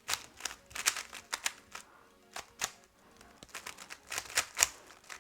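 A 3x3 speed cube being turned quickly by hand: an irregular run of sharp plastic clicks and clacks, several a second, as the layers snap round. The clicks pause briefly near the middle.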